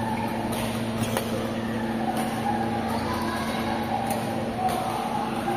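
A badminton rally: several sharp cracks of rackets hitting the shuttlecock, spaced irregularly, over a steady low hum.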